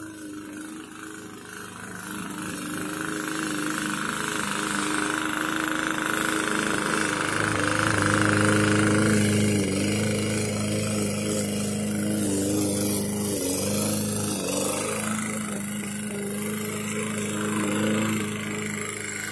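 Petrol engine of a red walk-behind rotary lawn mower running while cutting grass. It grows louder over the first several seconds as it comes closer, and its speed dips briefly a couple of times.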